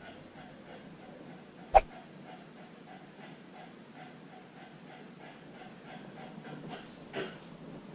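Husky puppy panting steadily, about three breaths a second, heard close up through a camera strapped to her back. A single sharp knock comes nearly two seconds in, and a fainter one near the end.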